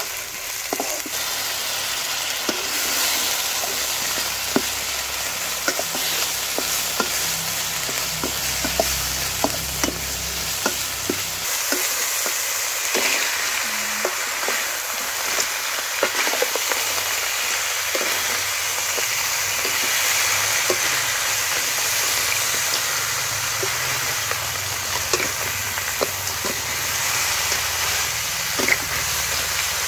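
Pounded kroeung spice paste and rice-field crabs sizzling as they stir-fry in a wok, with a metal spatula scraping and clicking against the pan throughout.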